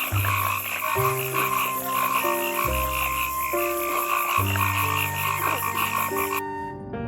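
Frogs calling in a rapid, pulsing chorus over soft background music; the chorus cuts off suddenly near the end.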